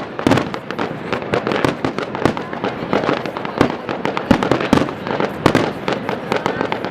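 Fireworks display: a dense, irregular run of bangs and crackles, several a second.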